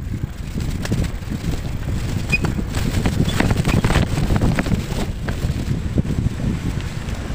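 Wind buffeting the microphone of a moving bike, a low, steady rumble, with scattered rattles and knocks as it rides over a rough dirt road, busiest in the middle.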